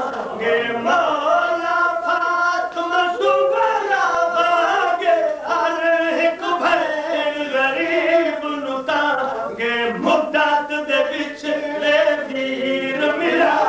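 A man's voice chanting a devotional verse in a drawn-out, melodic style into a microphone, with long held notes that glide up and down.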